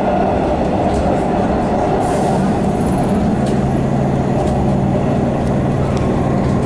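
Interior of an EDI Comeng electric train running along an elevated concrete viaduct: a steady rumble of wheels and car body, with a low hum that strengthens about halfway through and a few faint clicks.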